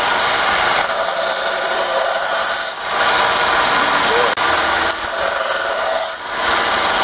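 Palmgren belt sander running steadily while a steel file is pressed to the belt twice, each pass a loud grinding hiss of one and a half to two seconds: the file's teeth being ground smooth.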